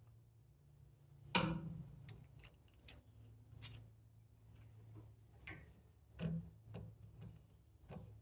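A sharp knock about a second in, then several lighter clicks and knocks at uneven intervals, over a steady low hum.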